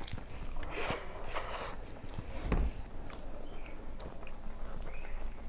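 A person chewing a mouthful of rice and fish curry close to the microphone: irregular wet clicks and smacks, with a louder dull thump about halfway through.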